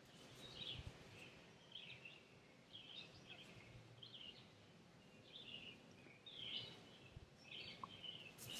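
Faint high bird chirps repeating about once a second over a quiet outdoor background, with a brief burst of noise at the very end.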